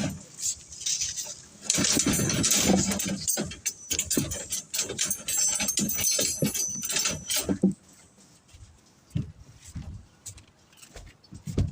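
Steel reinforcing rods clinking and rattling as they are handled, with some high metallic ringing. The clatter is dense for the first seven or eight seconds, then thins to occasional knocks.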